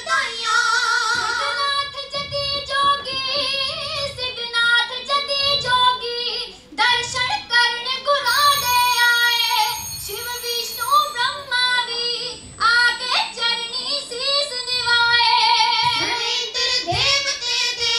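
Three girls singing Kavishri, Punjabi sung folk poetry, through microphones, phrase after phrase with wavering held notes and short breaks between lines.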